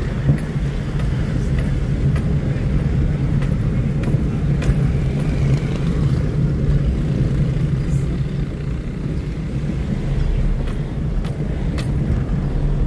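Toyota car's engine and road noise heard from inside the cabin while driving: a steady low hum, with a few faint scattered clicks.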